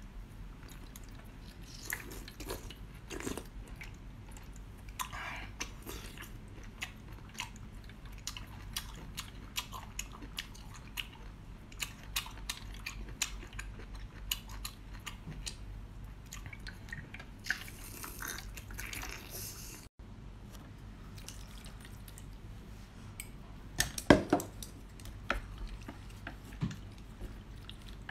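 Close-miked wet eating sounds: slurping, lip smacks and chewing on a raw geoduck's siphon, with many scattered sharp clicks and a long hissing slurp a little past the middle. Near the end, a short cluster of louder bites.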